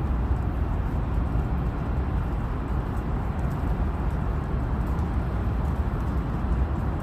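Boeing 757 jet airliner rumbling steadily as it lands, a deep even noise with no distinct tones and no clear rise or fall.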